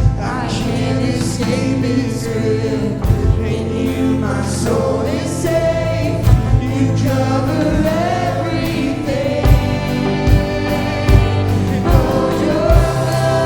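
Contemporary worship song sung by a church worship team and congregation, with a band and low drum hits.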